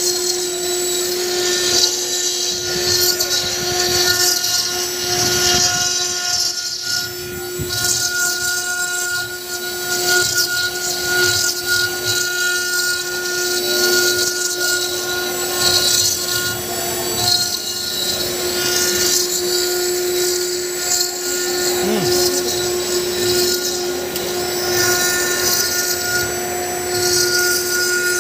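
CNC stone-carving router's spindle running with a steady whine while its engraving bit cuts into a white stone slab, over a continuous high, gritty hiss from the cutting.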